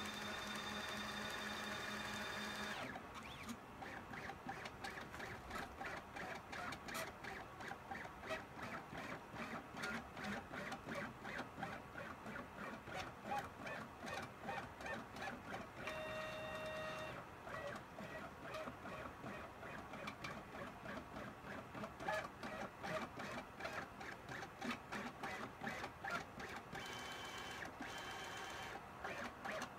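CNC pen plotter's stepper motors driving the pen across the board as it traces outlines. They give a steady whine at the start, briefly about 16 seconds in and again near the end. In between comes a rapid, uneven stutter of pulses.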